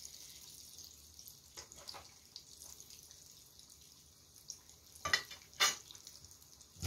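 Oil sizzling faintly as pumpkin cheese croquettes deep-fry in a pan, with a few light taps of a slotted spatula. About five seconds in come two sharp clinks as the spatula is set down in a glass dish, and a dull thump right at the end.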